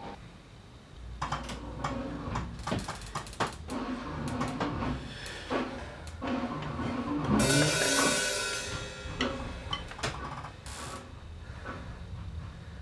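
Irregular clicks, knocks and clattering, with a louder rattling burst that rings briefly about seven and a half seconds in.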